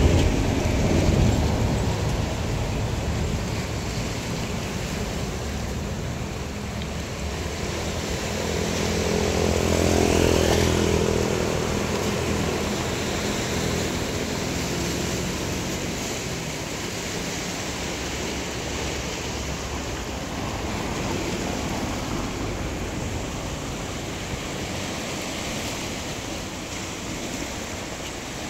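Sea waves washing on the shore in a steady rush. About ten seconds in, a motor vehicle passes, its engine rising and then fading.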